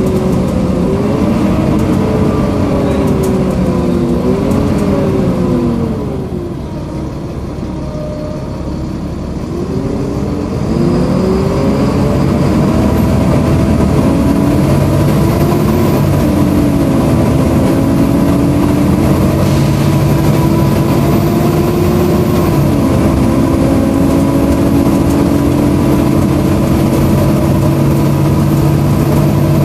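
Volvo B7LA Wright StreetCar articulated bus heard from inside the cabin, with the loud, hoover-like whine of its engine cooling fan over the diesel engine. The engine pitch rises and falls through gear changes in the first few seconds, drops away for a few seconds, then climbs again and holds steady.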